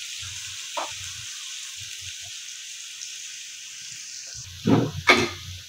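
Chopped red onion and garlic sizzling in hot oil in a nonstick kadhai while a wooden spatula stirs them: a steady frying hiss, with two brief louder scrapes of the spatula near the end.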